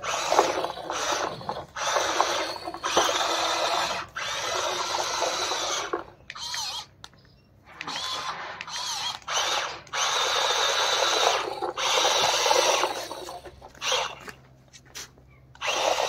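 Electric motor and gearbox of a four-wheel RC stunt car whining under load as it tows a loaded toy dump truck. The whine comes in runs of one to two seconds with short breaks as the throttle is worked.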